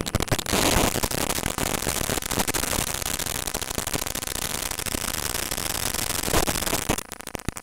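Loud crackling noise full of sharp clicks, like heavy static, cutting off about seven seconds in.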